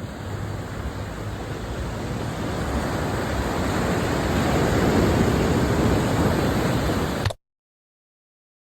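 Steady rushing noise of wind and surf at the seashore, swelling slowly louder, then cutting off abruptly about seven seconds in.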